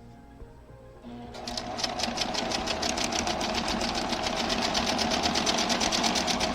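Sewing machine stitching a quarter-inch seam along a quilting strip set. It starts about a second in, runs at a fast, even stitch rhythm, and stops suddenly near the end.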